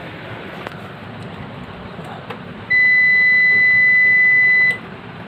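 A PC motherboard's POST buzzer giving one long, steady, high beep lasting about two seconds, sounded as the computer is switched on.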